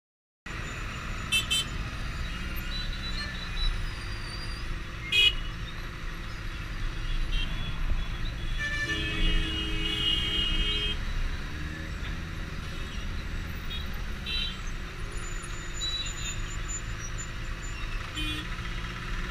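Benelli TNT 600i's inline-four engine running at low speed in heavy city traffic, a steady low rumble. Other vehicles' horns toot briefly several times, with one longer horn blast of about two seconds about halfway through.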